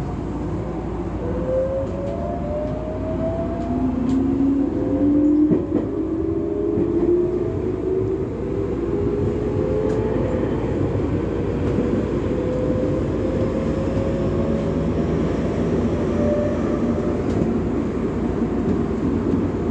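Electric train accelerating: the whine of its traction motors climbs steadily in pitch over many seconds, in a few overlapping rising tones, over a continuous rumble of running gear on the rails.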